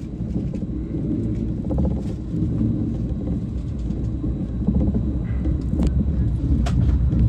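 A 521 series electric train running, heard from inside its rear cab: a steady rumble of wheels on the rails, with a few sharp clicks in the second half.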